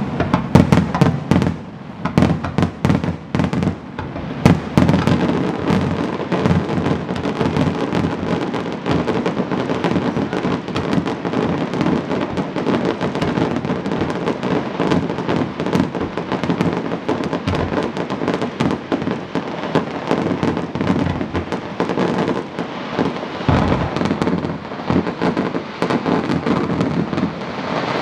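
Aerial firework shells bursting in rapid succession: a dense barrage of bangs and crackling, with the heaviest bangs in the first few seconds, then a continuous crackle and rumble.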